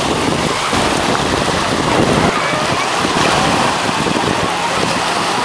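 Small sea waves breaking and washing up over a sandy beach at the water's edge, with wind noise on the microphone.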